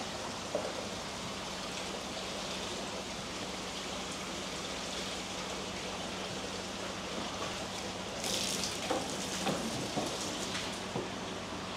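Steady rush of running water over a low steady hum, with a louder splash about eight seconds in and a few smaller splashes and knocks after it.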